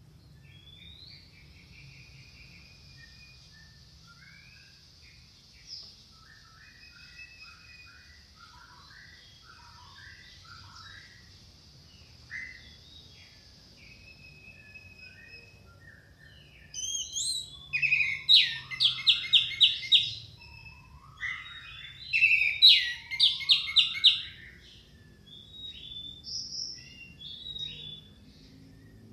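Orange-headed thrush song: soft, scattered warbled notes over a faint steady high hiss at first, then about halfway through two loud bursts of rapid repeated notes mixed with slurred phrases, and a few softer calls near the end.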